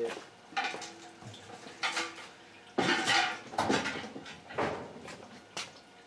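Light knocks and clinks from wet laundry being handled inside the tub of a vintage Kenmore top-loading washer, about half a dozen spread over a few seconds, some with a short ring.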